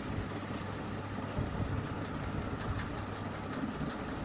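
Steady low rumbling background noise with a few faint ticks.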